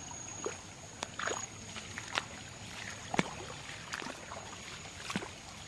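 Floodwater sloshing and splashing in short, irregular bursts.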